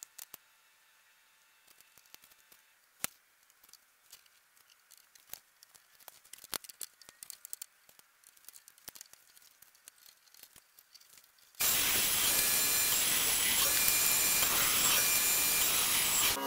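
Light scattered clicks and taps of workshop handling. About eleven and a half seconds in, a power tool starts suddenly and runs loudly and steadily.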